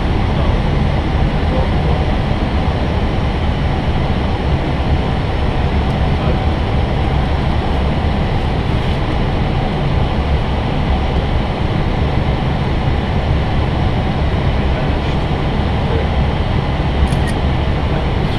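Steady low rumble inside an Airbus A320's cockpit in flight on approach: the constant noise of airflow and the engines.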